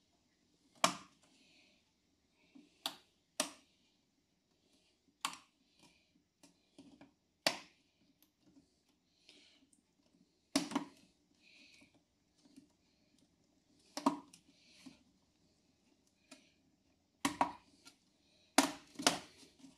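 A TV's plastic bezel clips snapping into place one after another: about ten sharp clicks at irregular intervals, with faint handling and scraping of plastic between them.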